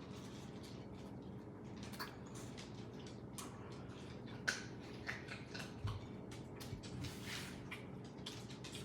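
Faint scattered clicks and soft squishy mouth sounds of someone biting into and chewing a bacon grilled cheese sandwich, over a low steady hum.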